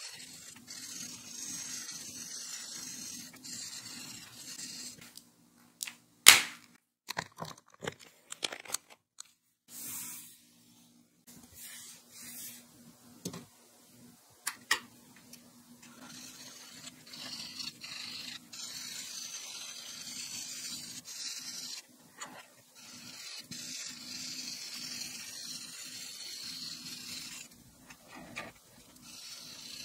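Felt tip of a Touch Mark alcohol marker scratching across paper in quick back-and-forth coloring strokes, a steady dry hiss. In the middle it stops for a few sharp clicks of marker caps, the loudest about six seconds in, then the scratching resumes.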